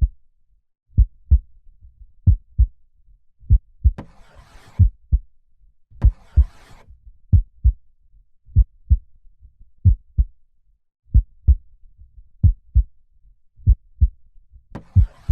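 Slow human heartbeat, a low double thump (lub-dub) repeating about once every 1.3 seconds. A soft hiss sounds briefly twice in the middle and again near the end.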